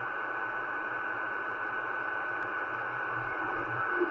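Kenwood R-1000 shortwave receiver on an open HF single-sideband air traffic channel between transmissions: steady, muffled static hiss with a thin steady whistle running through it.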